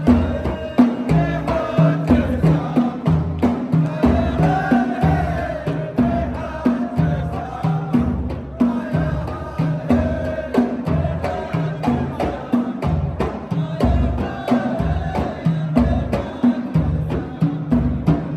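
Arabic wedding music with a steady drum beat and sharp percussive clicks, and a wavering melodic line over it.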